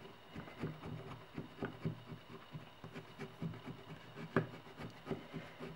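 Bone folder rubbing and scraping along the folded spines of a coptic-stitched notebook's signatures, flattening their rounded folds square. A faint run of short, irregular scrapes and taps, a few of them louder.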